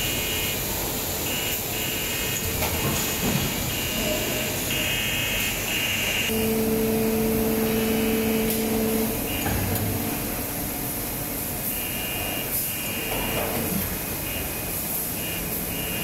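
Haitian injection molding machine and its Kowey take-out robot running: steady machinery noise with a hiss, high whining tones that come and go, and a stronger low hum for about three seconds near the middle.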